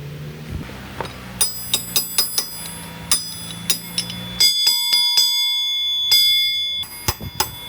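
Hammer blows on a steel part, a few a second, each ringing bell-like, with a sustained metallic ring through the middle. A low engine hum runs under the first half and stops about halfway through.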